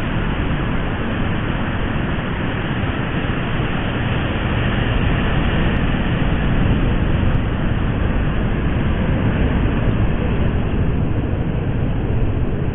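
Steady rumbling noise of wind on the microphone, mixed with the wash of surf breaking on a sandy beach.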